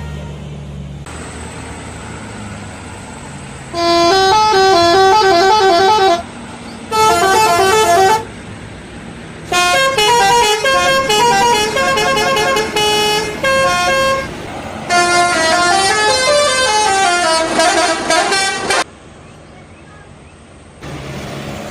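Indonesian 'telolet' bus horn, a set of air-horn trumpets playing a quick, stepping multi-note tune. It sounds loudly in four bursts of one to four seconds each, with short gaps between them; the third burst is broken into short choppy notes.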